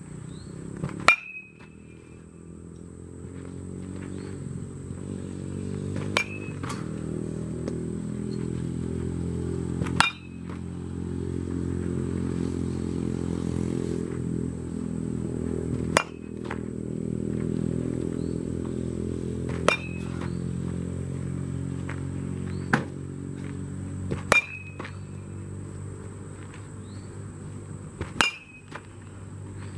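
A baseball bat hitting pitched balls in batting practice: eight sharp cracks, a few seconds apart, each with a short ringing ping. A steady low drone rises and falls underneath.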